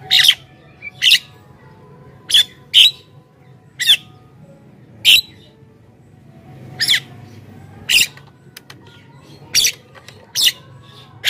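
Javan myna (jalak kebo) giving short, harsh squawking calls, about ten of them, spaced roughly a second apart with a longer gap near the middle.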